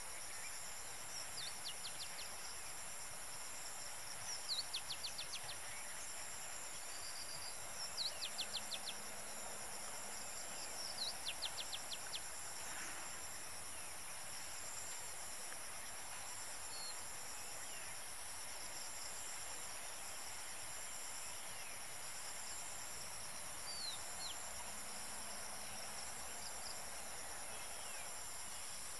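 Steady high-pitched insect chorus, with a bird calling a quick run of short, sharp notes four times in the first half and a few faint calls near the end.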